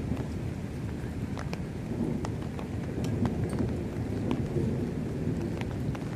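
Thunder rumbling low in a thunderstorm, swelling a few seconds after a lightning flash, with rain and scattered sharp raindrop ticks.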